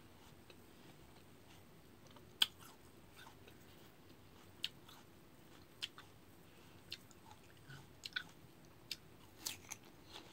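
Close-up chewing of crisp raw fruit slices, a run of about eight sharp, wet crunches spaced a second or so apart, the loudest about two and a half seconds in.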